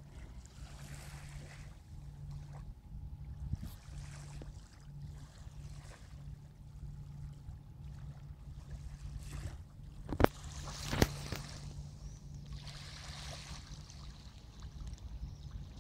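Water sounds on a river with a low pulsing hum, and two sharp knocks about a second apart about two-thirds of the way through.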